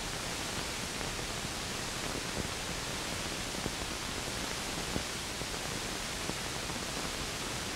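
Steady hiss of an old film soundtrack, with a few faint clicks scattered through it.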